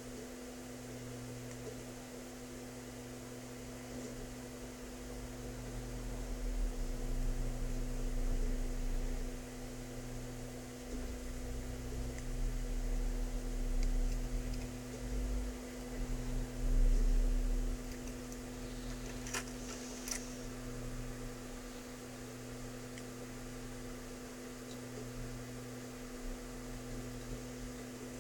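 Steady electrical hum, with a low rumble that swells for several seconds in the middle and two faint clicks about two-thirds of the way through.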